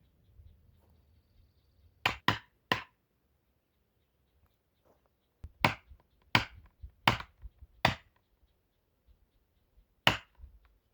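Felling wedge being hammered into a tree's back cut to tip over a tree that an uneven back cut kept from falling. Eight sharp strikes: three in quick succession about two seconds in, four more at an even pace a few seconds later, and one near the end.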